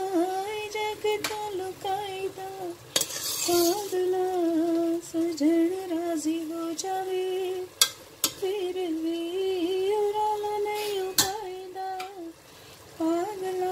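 A woman humming a slow, wavering tune over chicken pieces frying in oil in a steel pot. A spoon stirring the chicken gives a few sharp clinks against the pot, and a brief scrape about three seconds in.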